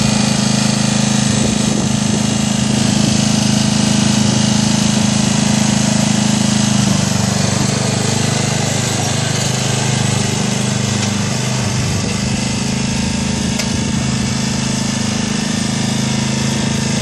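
Murray riding lawn mower's small engine running steadily as the mower drives through snow with a plow on the front, easing off a little in level after about seven seconds.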